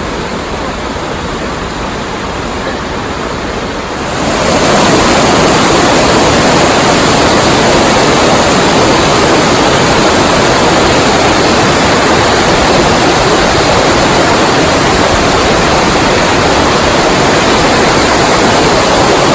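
A waterfall's falling water making a steady, loud rushing noise. About four seconds in it becomes abruptly louder and brighter, then holds steady.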